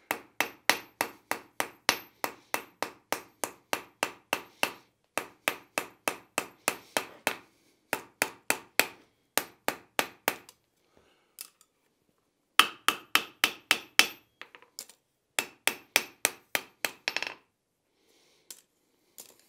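Hand hammer striking hot iron on a steel anvil in quick runs of blows, about three or four a second with short pauses between runs, each blow ringing: the edge of a hinge being forged to a bevel. The blows stop about two seconds before the end, leaving a few light taps.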